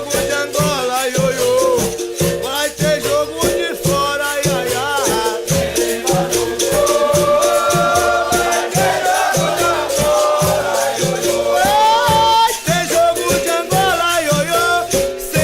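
Capoeira music: several voices singing a wavering melody over an even beat of low drum strokes and a shaken rattle.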